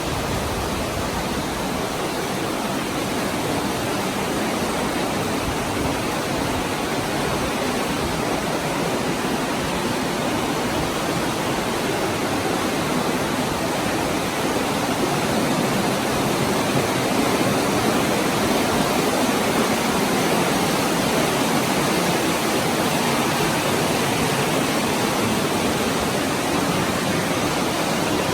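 Steady rushing of flowing water from a stream running through a cave, swelling slightly about halfway through.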